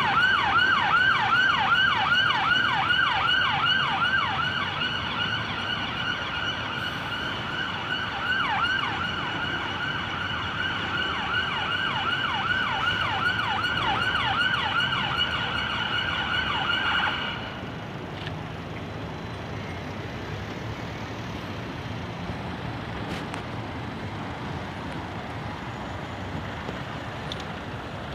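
Ambulance siren on a fast yelp, a rapid rising-and-falling whoop about three times a second. It cuts off suddenly about 17 seconds in, leaving the steady noise of city traffic.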